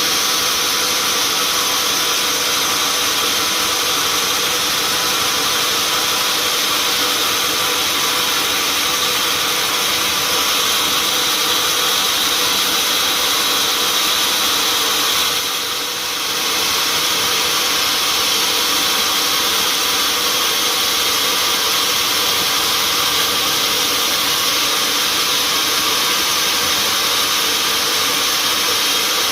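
Sawmill machinery running steadily: a dense, loud hiss with several steady whining tones, dipping briefly about halfway through.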